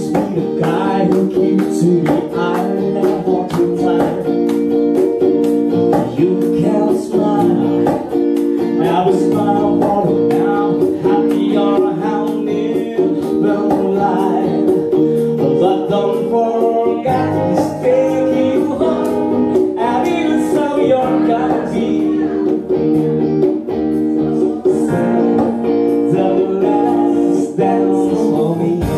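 Live band playing a song: electric guitar, bass guitar and keyboard under sung vocals through microphones.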